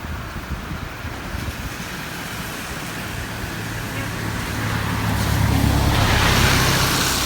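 A road vehicle drives past: its engine hum and road noise grow louder to a peak about six seconds in, then begin to fade.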